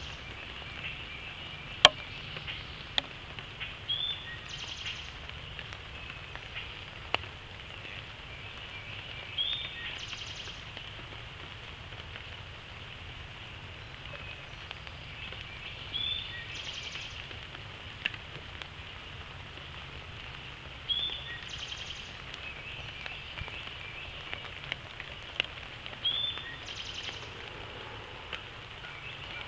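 Steady hiss of rain falling in woodland, with scattered sharp ticks of single drops, the loudest about two seconds in. A bird gives a short call about every five to six seconds.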